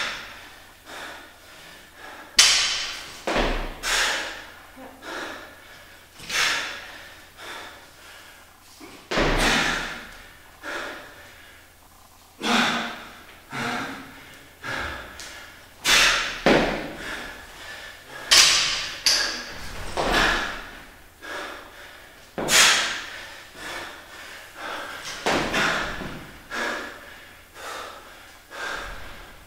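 Heavy, sharp breathing of a lifter working through repeated barbell reps, with dull thumps every few seconds as the barbell, loaded with a 20 kg bar and 10 kg plates a side, touches down on the wooden platform.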